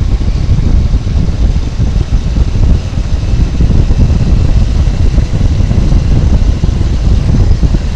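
Motorcycle on the move: a steady, loud rumble of engine, tyres and wind on the microphone.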